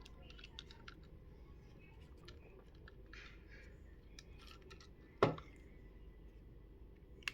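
Light clicks and taps of small metal screwdriver bits being handled and tried in a phone's tiny frame screws, with one sharper, louder click about five seconds in.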